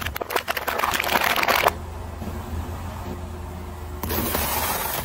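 Clear plastic packaging crackling and crunching under a slowly rolling car tyre, a rapid run of sharp crackles for the first second and a half. A low steady hum follows, with a louder rushing noise setting in about four seconds in.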